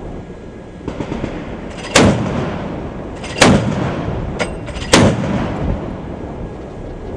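Three loud single shots from a heavy gun on a navy ship, about a second and a half apart, each trailing off, over a steady rush of wind and ship noise.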